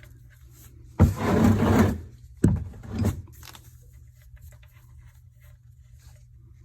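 A tool working the oil drain plug of a 2019 Chevy Silverado: a scraping rasp about a second long, a sharp click, then a shorter rasp.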